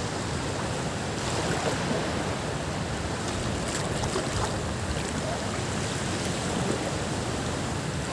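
Shallow sea water washing around someone wading, a steady rushing hiss with a few faint small splashes.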